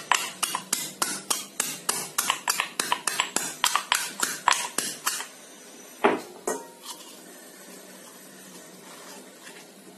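A pestle pounds chopped banana stem in a small stone mortar in quick, even strikes, about four or five a second, stopping about five seconds in. Two separate louder knocks follow about a second later.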